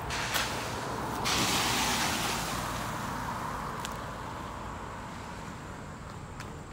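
A rushing hiss with no pitch to it. It swells suddenly a little over a second in, is loudest for about a second, then slowly fades.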